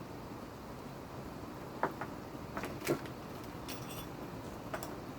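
A handful of light clicks and knocks from small parts being handled and set down on a workbench, over a steady hiss.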